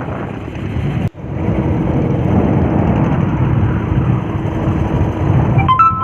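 A vallam fishing boat's engine running steadily under way on a test run, with a rumble and rushing noise. The sound drops out briefly about a second in, and a short two-pitched tone sounds near the end.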